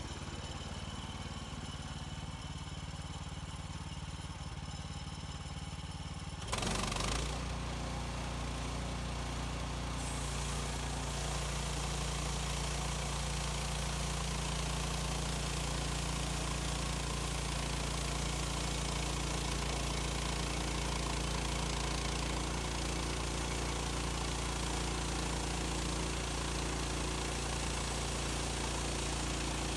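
Small gasoline engine of a portable bandsaw mill running steadily at low speed, then throttled up about six seconds in and running louder at speed. A steady high hiss joins from about ten seconds in.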